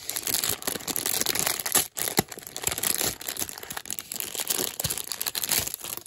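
Thin clear plastic bag crinkling and crackling as it is pulled open by hand, with a short break about two seconds in.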